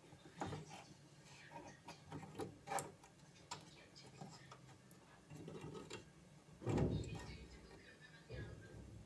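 Scattered light clicks and knocks, as of small hard parts being handled, with one heavier thump about seven seconds in.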